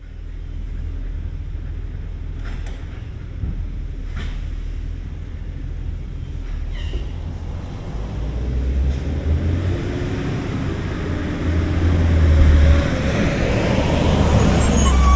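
School bus engine running low and steady with a few faint clicks, then speeding up as the bus pulls away, its note rising and growing louder from about eight seconds in.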